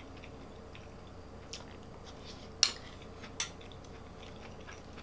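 An eating utensil clinking against a plate or bowl: a few light clicks, the loudest about two and a half seconds in and another just under a second later.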